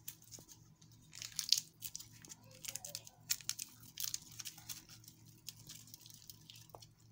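A seasoning cube being unwrapped and crumbled by hand: quick, irregular crinkling and crackling of the wrapper and the cube, fading out near the end.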